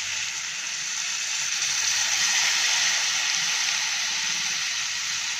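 Tamarind water poured in a thin stream into a hot kadai of frying tomato-onion masala, making a steady sizzling, trickling hiss that swells slightly about halfway through.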